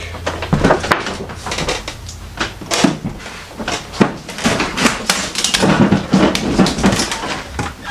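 Irregular knocks, clicks and rustling of someone moving through a cluttered room, bumping and shifting stacked household items.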